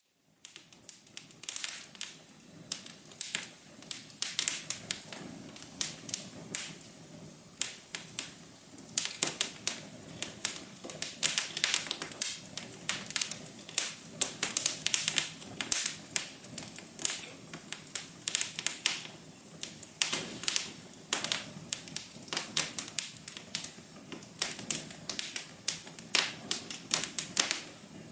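Wood fire crackling in a fireplace: a dense, irregular run of sharp pops and clicks over a soft low hum.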